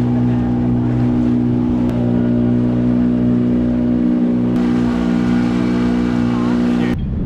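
A motor running steadily with a constant pitch, cutting off abruptly near the end.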